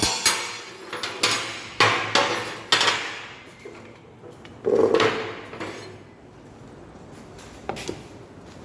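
A hammer striking steel in a fabrication shop: a few irregular knocks over the first three seconds, a louder clatter of metal about five seconds in, and one last knock near the end.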